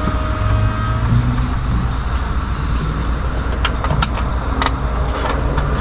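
Vehicle engine idling with a steady low hum, and a few sharp metallic clicks about four seconds in.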